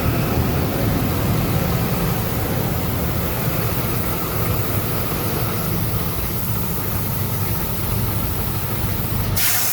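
Diesel city bus engine running steadily at low revs, then a sudden loud hiss of compressed air breaks in near the end.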